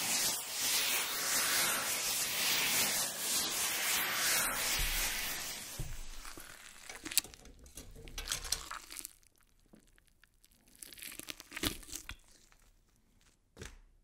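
Leaves and branches rustling and swishing in rapid pulses as hands push through a leafy bush, then quieter, broken by a few sharp twig snaps and crackles.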